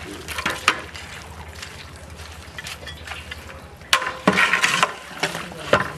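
Raw beef, spices and oil being stirred with a long metal ladle in a large aluminium pot: irregular wet squelching and scraping, busiest about four seconds in.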